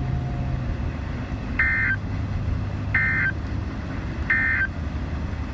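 Three short, buzzy digital data bursts of the EAS/SAME End-of-Message code from a NOAA Weather Radio broadcast, evenly spaced about a second and a half apart, over radio hiss and a low hum. They signal that the warning message has ended.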